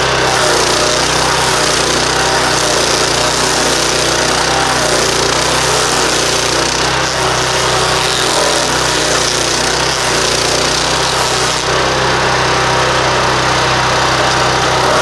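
Stump grinder's 15-horsepower Loncin engine running loudly and steadily at speed.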